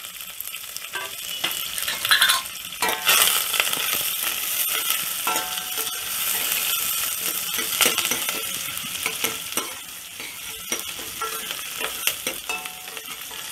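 Chopped onion and curry leaves sizzling in hot oil with popped mustard seeds in a stainless steel pot, as a spatula stirs and scrapes against the pot. It is loudest about two to three seconds in, with small crackles throughout.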